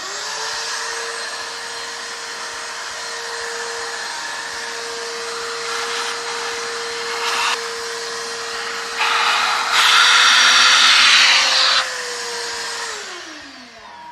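Shop vacuum switched on and running with a steady motor whine while it sucks dirt and debris out of the engine's spark plug wells. It gets louder and hissier for a few seconds, then is switched off and winds down with a falling pitch near the end.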